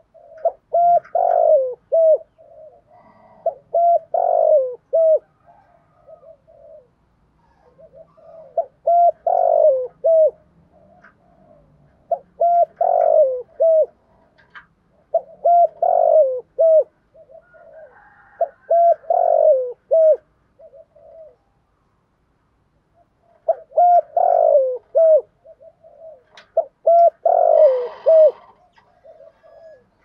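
Spotted dove cooing: about eight repeated multi-note coo phrases, roughly one every three to four seconds, with a pause of about two seconds past the middle. It is the insistent 'gù thúc' coo that keepers use to stir up other doves.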